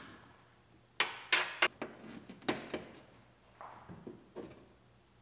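Plastic wiring-harness clips being unclipped and popped off a 2020 Acura RDX door: a quick run of sharp clicks and snaps about a second in, then a few softer ones.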